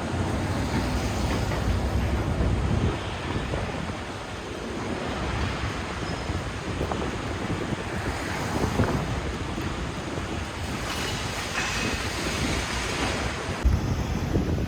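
Steady wind and wet road noise inside a Peterbilt 389 semi truck's cab while driving in heavy wind and rain, with a few light knocks, the sharpest near the end.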